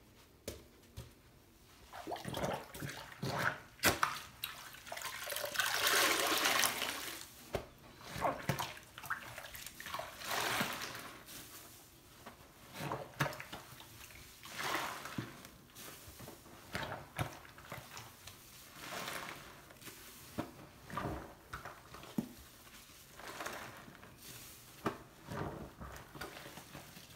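Large yellow foam sponge squeezed by hand in a sink of soapy water: wet squelching and water gushing out of the sponge, starting about two seconds in, with a longer gush around five to seven seconds in and then short squeezes every second or two.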